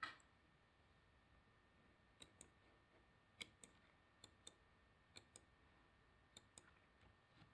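Faint computer mouse clicks, mostly in quick pairs a fifth of a second apart, repeating every second or so from about two seconds in, with near silence between them.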